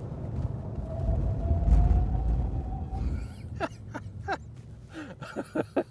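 Heavy in-cabin road and engine rumble of a Mercedes S500 4Matic coupé's twin-turbo V8 at high speed, loudest about two seconds in, dying away suddenly about three seconds in as the car brakes hard from around 200 km/h. Then a run of short chirps.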